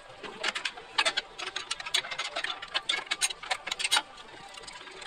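Rapid, irregular metallic clicking from hand work on the Craftsman jointer's fence mechanism. The clicking stops about four seconds in.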